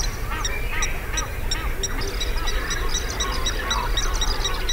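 Wetland bird chorus: one bird calling repeatedly with short arching notes, over a dense scatter of quick high chirps and peeps.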